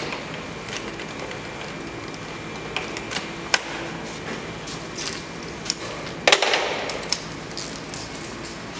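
Scattered light clicks and knocks of hand tools and door hardware being handled during door-handle reassembly, with a louder short clatter about six and a half seconds in.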